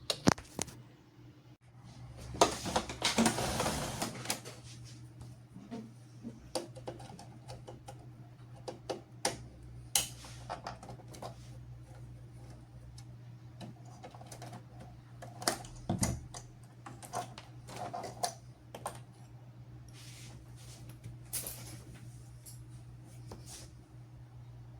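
Irregular clicks and knocks of plastic printer parts being handled and taken apart, with a louder rattling stretch about three seconds in, over a steady low hum.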